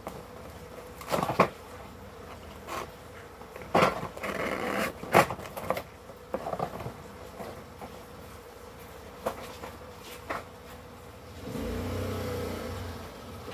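Cardboard boxes being handled: an inner box slid out of its outer carton with scattered knocks, scrapes and rustles, over a steady faint hum. Near the end a low rumble lasts about a second.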